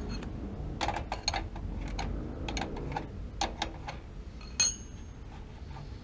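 Light clicks and clinks of metal tools and fittings being handled, with one sharp, ringing metallic clink about four and a half seconds in.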